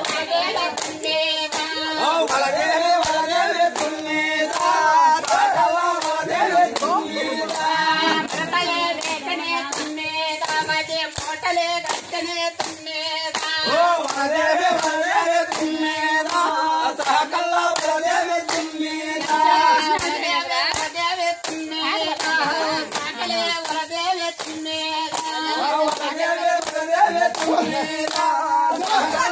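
A group of people singing together while clapping their hands to a steady beat, about two to three claps a second.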